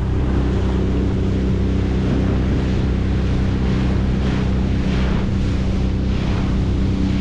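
25 hp Mercury four-stroke outboard motor running steadily under way, with water swishing against the boat's hull in repeated washes.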